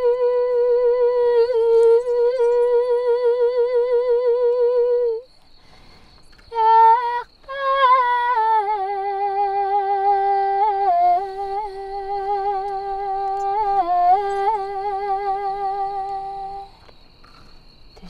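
Female voice singing long, wordless held notes with a wide vibrato. One note is held for about five seconds and breaks off. After a few short notes, the voice slides down about eight seconds in to a lower note, held with vibrato and small dips, which ends about a second before the close.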